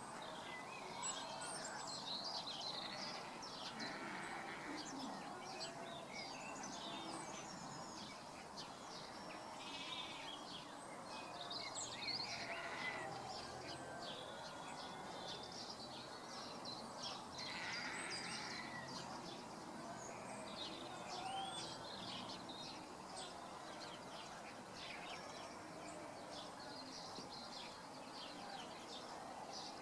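Outdoor ambience full of birds chirping and calling, many short high chirps overlapping, with a few longer calls over a steady background hiss.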